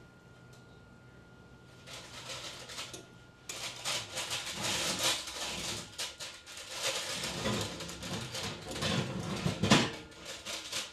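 A few quiet seconds with a faint steady whine, then a run of irregular clatters and scrapes, like things being handled and moved about in a kitchen. The clatters are loudest near the end.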